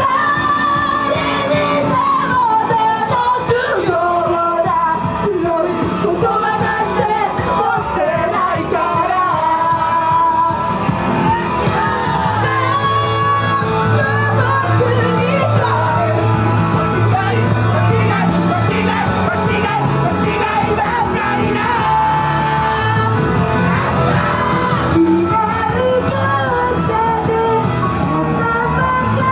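Female idol group singing live into microphones over loud rock-style backing music, with some shouted parts.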